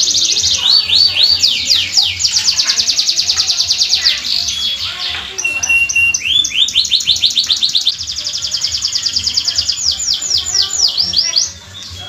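Domestic canary singing a long, continuous song of rapid rolling trills, each a quick run of repeated high notes, broken by a brief steady whistle about halfway; the song stops shortly before the end.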